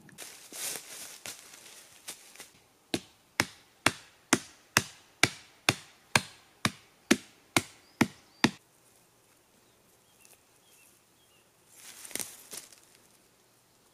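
A hatchet striking a wooden stake: about a dozen sharp, evenly spaced knocks, roughly two a second, that stop suddenly. Rustling in dry leaves comes before the knocks, and again briefly near the end.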